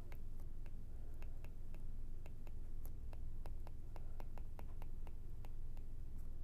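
Stylus writing on a tablet: a quick, irregular run of light clicks and taps as the words are handwritten, over a low steady hum.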